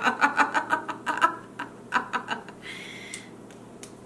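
A woman's rapid giggling laugh, breaking off after about a second, followed by a few softer chuckles and a breathy exhale.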